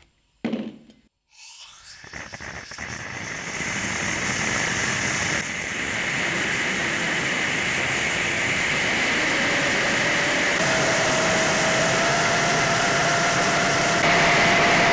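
Butane and compressed-air flame burning in a quartz-tube combustion chamber fed by a brass swirl injector. After a click near the start, a hiss builds over the first few seconds into a loud, steady rushing noise, with a faint whistling tone joining past the middle.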